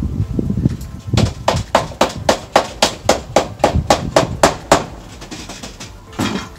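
Mallet tapping an aluminium fly screen frame, knocking a corner piece into the frame channel: about fourteen quick, sharp strikes at roughly four a second, then one duller thump near the end.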